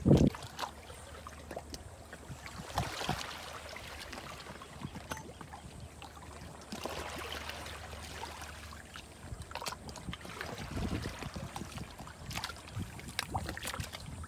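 Shallow seawater lapping and sloshing at a rocky shore, with wind buffeting the microphone and scattered knocks. A sharp thump comes right at the start.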